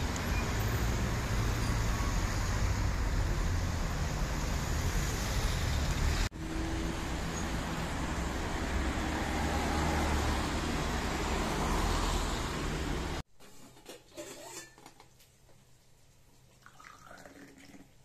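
City traffic on a wet street: cars passing in a steady roar. About 13 seconds in it cuts off suddenly to a much quieter room with a few faint clinks.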